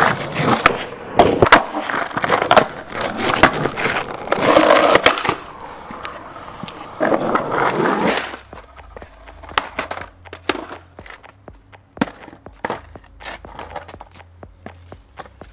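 Skateboard wheels rolling on asphalt with clacks and impacts of the board for about the first eight seconds, then much quieter with scattered light clicks.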